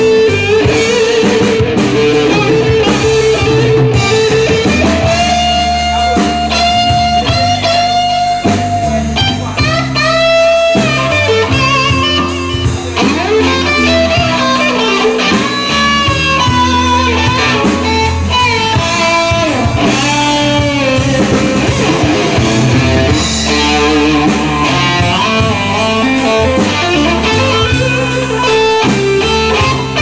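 Live blues band: electric guitar playing held, bending lead notes with vibrato over a drum kit.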